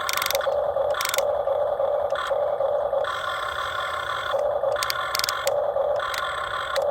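Huina RC excavator's small electric motors whining in short stop-start runs as the arm and bucket are worked, with a few sharp clicks between runs.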